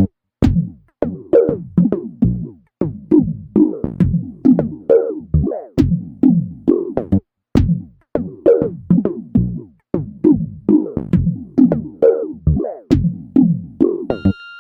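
Electronic background music: a drum-machine beat with short, quickly fading synth notes in a steady rhythm, a held high synth tone entering near the end.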